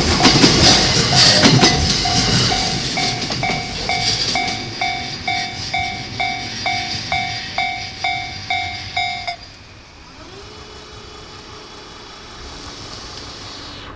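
An E235-series electric train clattering over the rail as its last cars pass and fade away, with the level-crossing alarm ringing about twice a second over it. The alarm stops suddenly about nine seconds in, leaving quiet background noise.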